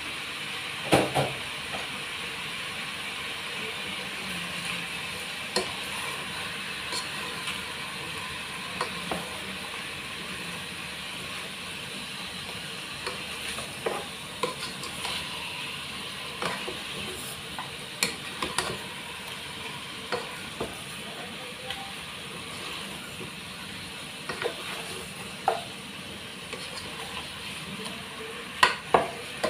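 Chicken and pork pieces sizzling in a pot as they brown, with a ladle scraping and knocking against the pot as the meat is stirred. The loudest knocks come about a second in and near the end.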